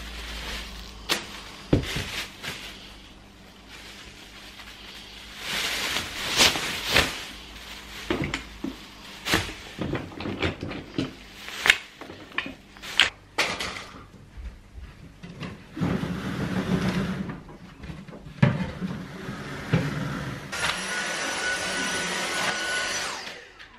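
Thin plastic bag rustling and crinkling as it is pulled open, among scattered clicks and knocks of things being handled. Near the end a stick vacuum cleaner runs steadily with a whine for about three seconds, then cuts off.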